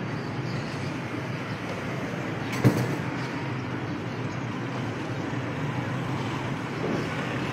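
Steady vehicle noise, a low rumble, with one sharp knock about two and a half seconds in.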